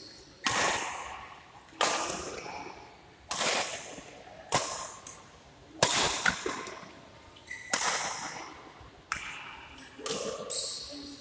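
Badminton rackets striking a shuttlecock in a doubles rally: about nine sharp cracks, roughly one every second or so, two of them close together near the end. Each hit rings on in the echo of a large hall.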